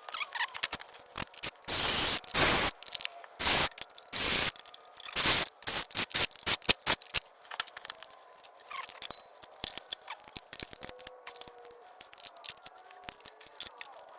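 Hand ratchet clicking in several quick runs as bolts are turned, with tools scraping and clicking on metal engine parts. The clicks thin out to scattered ones in the second half.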